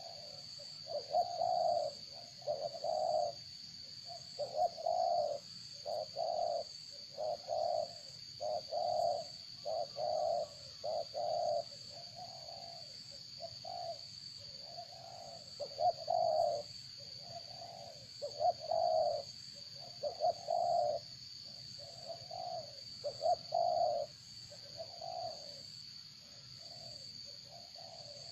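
A bird cooing: short low notes repeated in runs, over a steady high-pitched whine.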